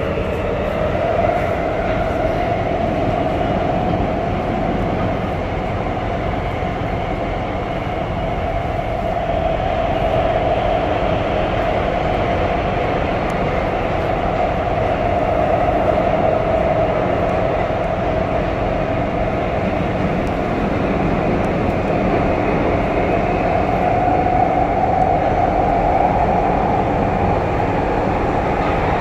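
Bombardier metro train running between stations, heard from inside the carriage: a steady rumble of wheels on rail with a continuous whine that drifts slightly in pitch.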